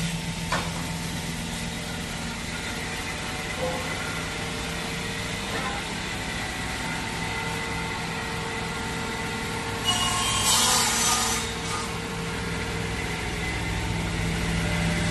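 Sliding panel saw running steadily with a constant hum and whine, with a few light knocks in the first seconds. About ten seconds in, the circular blade cuts through a small board for about a second and a half.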